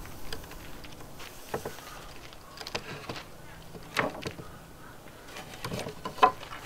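A few scattered knocks and clicks of wooden boards being handled and set down on a sawhorse table, the sharpest knock a little before the end.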